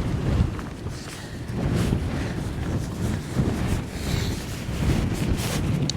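Strong gusty wind buffeting the microphone: a low rumble that swells and eases with each gust.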